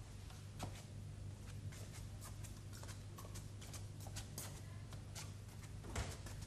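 Footsteps on a hard floor, walking away, about two a second, over a steady low hum; a louder thump near the end.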